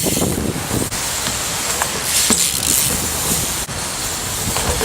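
Strong wind buffeting the camera microphone: a loud, steady rushing hiss with uneven low rumbles.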